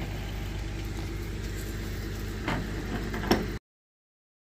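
A flatbed tow truck's engine runs steadily with a low hum while the car is pulled up the bed. Two sharp metallic clanks come near the end, and the sound then cuts off suddenly.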